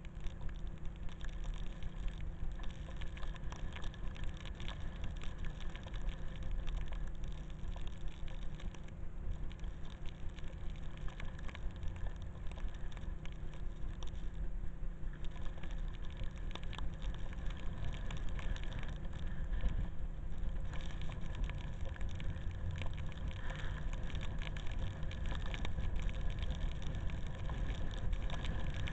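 Wind rushing over a pole-held camera's microphone while riding down a ski slope, with the continuous scraping crackle of sliding over snow.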